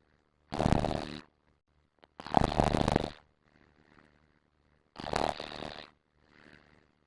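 A person snoring: three loud snores of just under a second each, with fainter breaths between them.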